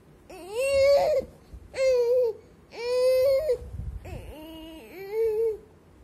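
A baby fussing in short, high-pitched whiny cries, about five of them, each well under a second, with brief pauses between.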